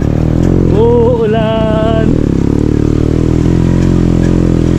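Motorcycle engine running steadily while under way, heard close from its sidecar. About a second in, a brief wavering high call rises over it.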